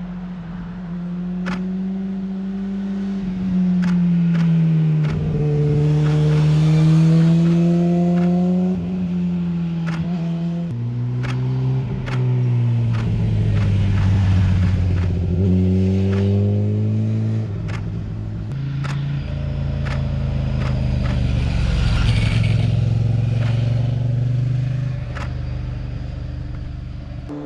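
Sport motorcycle engines passing through a bend, the engine note rising and falling with several sudden pitch steps as the riders shift gears and roll on and off the throttle. Camera shutter clicks sound repeatedly over the engines.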